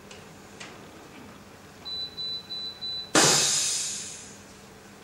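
Freesub ST420 pneumatic sublimation heat press beeping several times in quick succession at one high pitch, then giving a sudden loud hiss of air about three seconds in that fades away over a second or so, as its pneumatic press starts the mug cycle.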